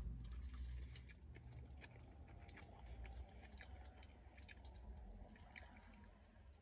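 A person chewing a mouthful of gyro sandwich: faint, irregular wet clicks and smacks, with a bite into the gyro near the end.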